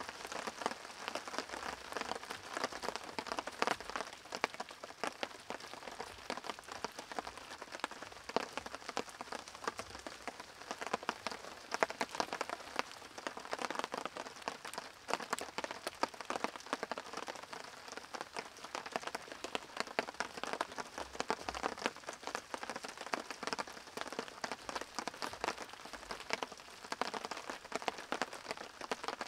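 Campfire of small sticks and twigs crackling steadily with many small pops.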